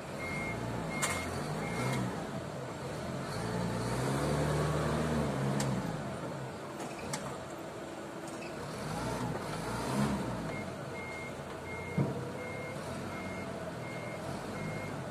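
Forklift with a paper-roll clamp at work: its engine revs up and falls back a few seconds in, and its warning beeper sounds in short, evenly spaced beeps, about two a second, at the start and again through the last few seconds. A few sharp knocks come in between.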